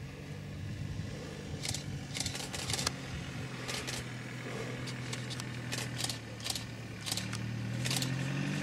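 Safari vehicle engine idling with a steady low hum that rises in pitch near the end, with scattered sharp clicks on top.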